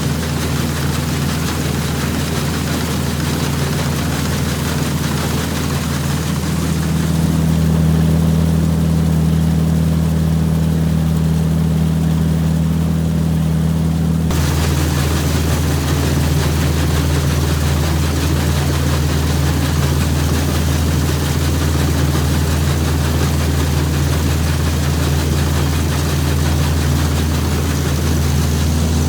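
Combine harvester engine running steadily under harvest load, a loud, constant drone. Its tone rises slightly about a quarter of the way in and changes abruptly about halfway through.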